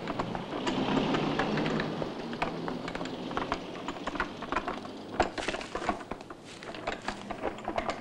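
Footsteps and the knocking rattle of a wooden handcart being wheeled over a leaf-strewn dirt path: an irregular run of short clicks and knocks that grows denser after about five seconds.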